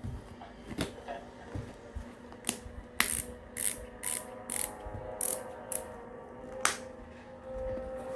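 BOA-style ratcheting dial on a rock-fishing shoe clicking as it is turned to tension the newly replaced lacing wire: about a dozen sharp clicks, irregularly spaced, some in quick runs with short pauses between.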